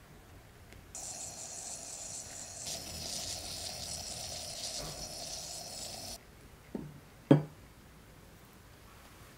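AeroPress coffee maker being plunged: a steady hiss of coffee and air forced through the filter for about five seconds, then two short knocks, the second louder.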